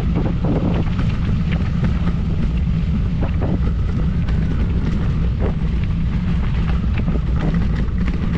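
Wind buffeting the microphone: a steady low rumble, with faint scattered knocks over it.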